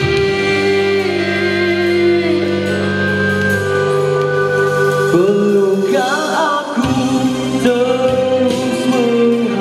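Male vocalist singing a Malay rock ballad over a karaoke backing track of sustained chords, with a long note held with vibrato about six seconds in.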